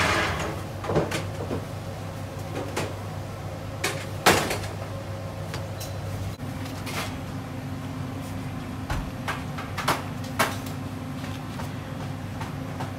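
Bakery kitchen work noise: scattered knocks and clatters, the sharpest about four seconds in, over a steady machine hum. A second, higher hum joins about halfway through.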